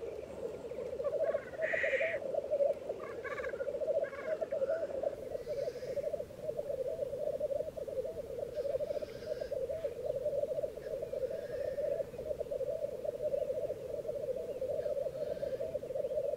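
Black grouse cocks lekging in chorus: the continuous bubbling, cooing rookoo display song of the males, with a few sharper, higher calls over it in the first few seconds.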